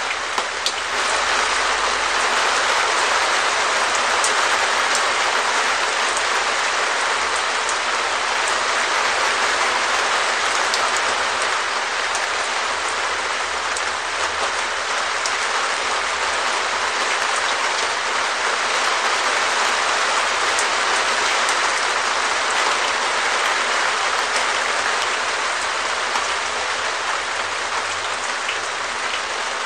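Steady rain falling on a perspex shed roof: a dense, even patter with scattered sharper ticks of single drops hitting the plastic.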